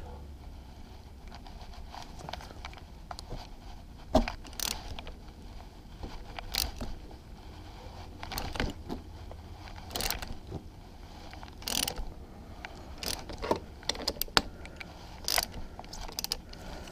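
Hand ratchet turning a cap-type oil filter wrench, clicking and clacking in irregular spurts as a snug oil filter on an outboard motor is worked loose.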